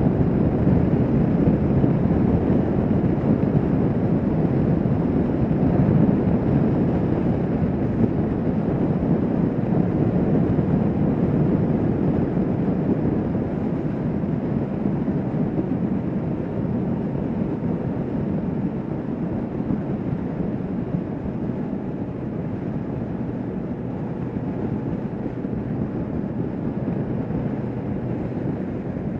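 Kawasaki Vulcan S 650 motorcycle riding at highway speed, heard from on the bike as a steady rush of wind and engine noise. It gets gradually quieter as the bike slows.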